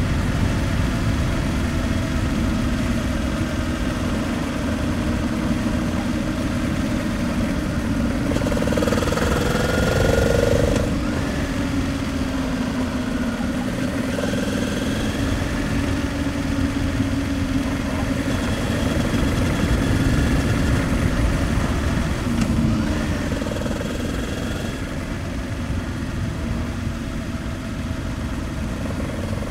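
Honda Transalp 700's V-twin engine running under way through a series of bends, its pitch rising and falling with the throttle, with a climb about a third of the way in and another about three-quarters through. A steady low wind and road rumble lies under it.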